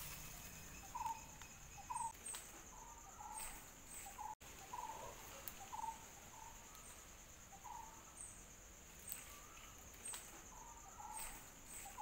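Forest ambience: a steady high-pitched insect drone, with short bird calls repeating every second or so.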